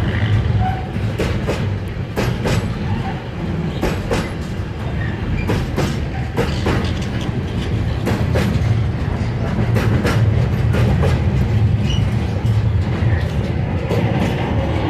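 Freight train of loaded container flat wagons rolling past at low speed: a steady low rumble with irregular clickety-clack as the wheels cross rail joints.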